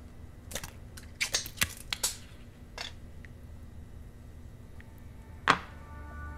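Clicks and taps of a small tin can being handled at a metal kitchen counter: a quick cluster of sharp clicks in the first two seconds, one more just before three seconds, and a single loud knock about five and a half seconds in.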